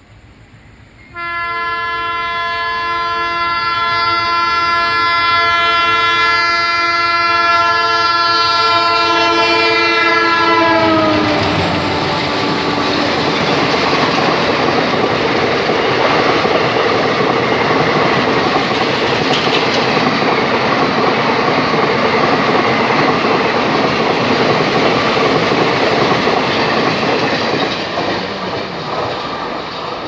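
Diesel locomotive's horn sounding one long blast of about ten seconds, its pitch dropping as the locomotive passes, then the coaches of the express train rattling past with clickety-clack over the rail joints, fading near the end.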